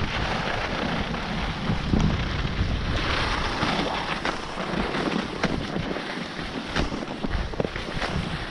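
Wind rushing over the microphone during a run down a ski slope, with the steady hiss and scrape of snow underneath and scattered sharp clicks.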